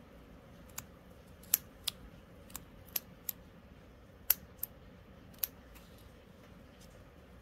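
Scissors snipping through the strands of a black knitted hexagonal-mesh net fabric, about nine sharp separate snips at uneven intervals as the blades cut across the mesh strand by strand.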